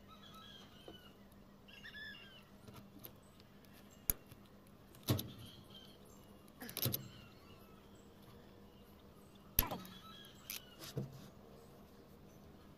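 Hand tools clanking against the sheet-metal roof and a small metal patch piece: about six sharp, separate metallic knocks with pauses between them.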